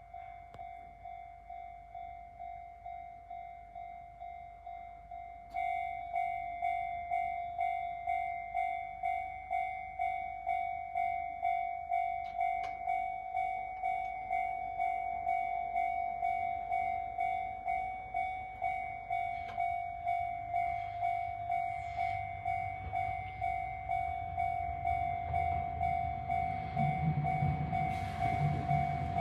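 Level-crossing warning bell with a Chichibu-type tone ringing about twice a second, its sound cracked and distorted. It jumps louder and harsher about five and a half seconds in, and a train's low rumble rises near the end.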